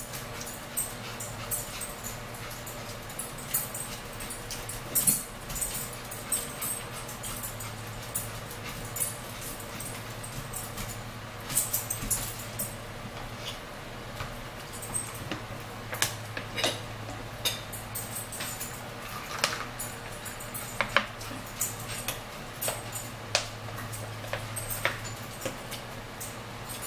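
Close-up eating sounds: chewing and mouth noises with scattered clicks and taps of cups and utensils on the table, over a steady low hum.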